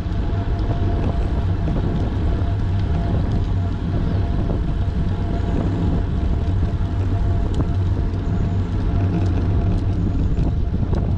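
Steady low wind rush on the microphone of a moving bicycle's camera, mixed with the rumble of tyres on asphalt, under a faint steady whine.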